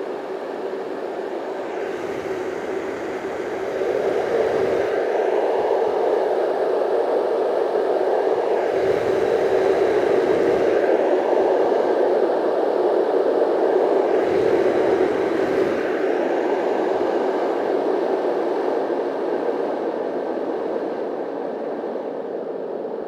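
SNOOZ Pro white noise machine's real internal fan running with a steady, airy rushing sound and a faint low hum under it. It grows louder about four seconds in and eases down gradually over the second half.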